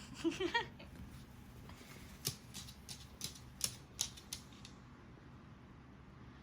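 A short vocal sound near the start, then a run of sharp, irregular clicks and taps from a blue-and-gold macaw playing with a toy.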